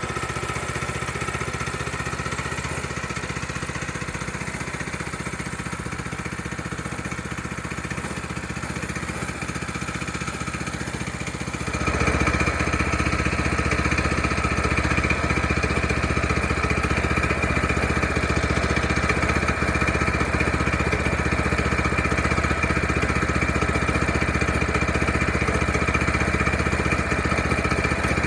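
Portable sawmill's engine running steadily during the first cut into a frozen log. About twelve seconds in it steps up to a louder run with a higher whine, which then holds steady.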